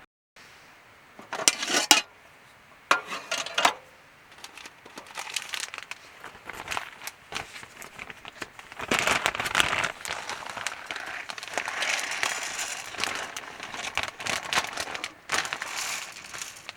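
Crinkling, rustling handling sounds: two short bursts, then a longer stretch of near-continuous crinkling.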